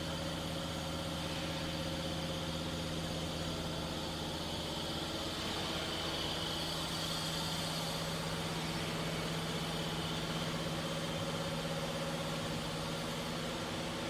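Cable tray roll forming machine running: a steady mechanical hum made of several constant tones with a light hiss over it, and no knocks or strikes.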